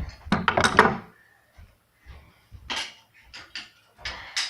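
Metal clanking and rattling from BMX parts and hand tools being handled: a burst of clatter in the first second, then a few scattered clicks and knocks.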